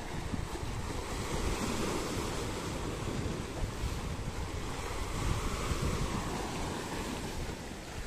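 Sea waves washing onto the shore, with wind buffeting the microphone in an uneven low rumble.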